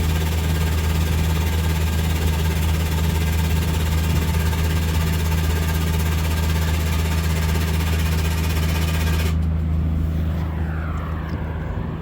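Steady loud rush of compressed air filling a pneumatic truck jack, over an engine running with a steady low hum. The air hiss cuts off abruptly about nine seconds in, leaving the engine hum.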